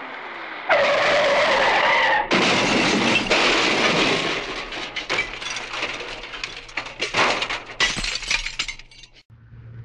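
Cartoon crash sound effect. A sudden loud burst comes about a second in, then a bigger crash of shattering glass and clattering debris. The clatter thins out over several seconds and stops shortly before the end.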